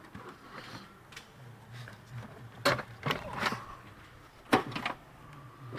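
Hard plastic knocking and clicking as a replacement washer fluid reservoir is pushed and worked up into place behind the fender. The sharp knocks come in a cluster near the middle and a pair near the end.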